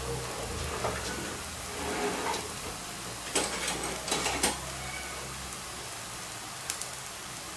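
Millet vegetable paratha cooking on a hot ghee-greased griddle: a faint steady sizzle with a few sharp crackles a little past the middle, over a low hum that fades out a little past halfway.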